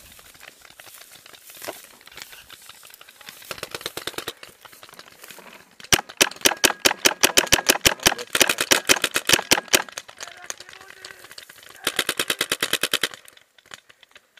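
Paintball marker firing in rapid bursts of about ten shots a second: a faint short burst about three and a half seconds in, a long loud burst of nearly four seconds starting about six seconds in, and a shorter burst of about a second near the end.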